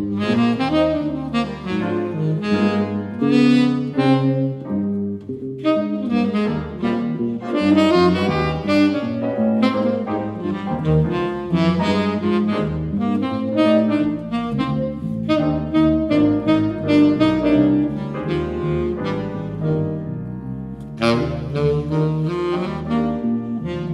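Tenor saxophone playing a jazz melody line over piano and electric bass accompaniment.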